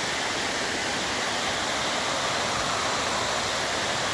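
Rushing water of a small waterfall and stream, a steady even rush.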